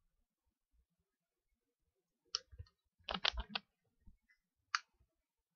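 A handful of short, sharp clicks, with a quick run of about five of them around three seconds in.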